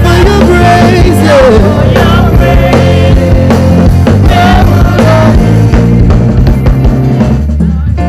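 Live gospel worship band playing, with drums and bass, while a voice holds wavering notes over it; the band thins out near the end.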